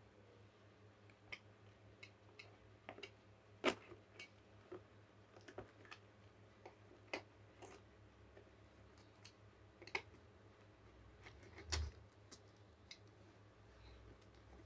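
Faint, irregular taps and clicks of a plastic-wrapped cardboard box being handled and turned over in the hands, with two louder knocks, one about a third of the way in and one near the end, over a faint low hum.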